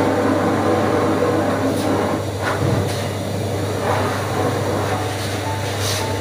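A steady low mechanical hum runs throughout, with a few faint clicks.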